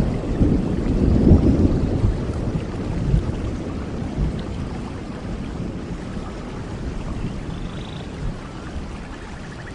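Steady tropical rain with a low rumble of thunder that fades away over the first several seconds. Faint short bird calls come through the rain near the end.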